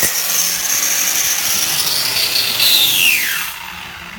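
Bosch angle grinder running at full speed against a metal radiator pipe with a high steady whine. About two and a half seconds in it is switched off, and the whine falls away as the disc spins down.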